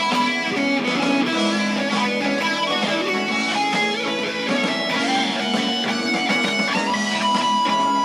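Stratocaster-style electric guitar played through an amplifier, lead lines over a recorded backing track, ending on a long held note.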